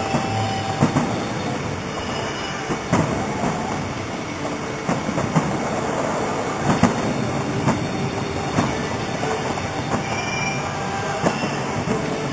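Fireworks display: a steady wash of crackling with many irregular pops and bangs.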